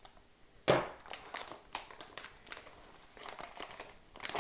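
Thick plastic outer pouch of a Norwegian Arctic Field Ration crinkling and tearing as it is pulled open by hand at a knife cut. There is one loud crackle a little under a second in, then a run of smaller crinkles.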